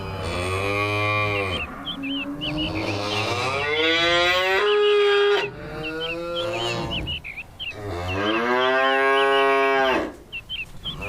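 Cows mooing: three long moos, the middle one the longest and rising in pitch. Short high chirps repeat steadily alongside them.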